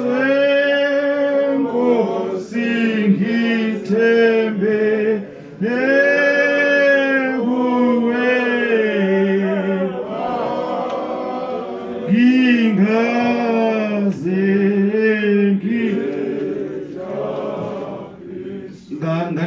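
People singing a slow unaccompanied hymn, in long held notes that glide between pitches, phrase after phrase with short breaths between.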